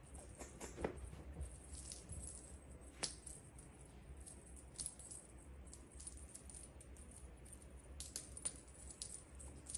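Faint, scattered jingling and rattling of a cat-teaser wand toy being waved and flicked around a cat, with a few slightly louder ticks.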